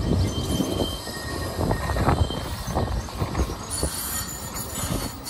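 Blackpool tram running on its rails: low rumbling with repeated knocks and a thin, high wheel squeal.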